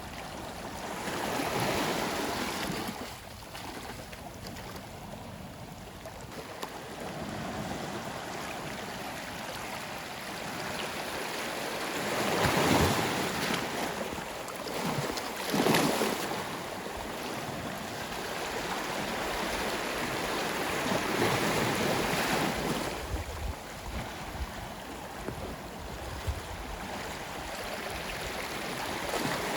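Ocean waves breaking on a shore in repeated surges, each swell of surf rising and then washing back, the sharpest crash a little past halfway.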